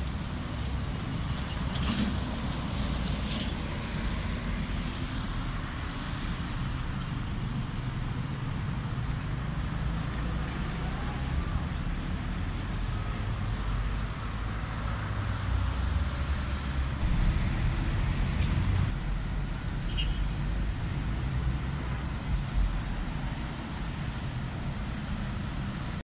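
Road traffic: cars and a coach driving past, a steady low rumble of engines and tyres. Two brief sharp clicks come about two and three seconds in.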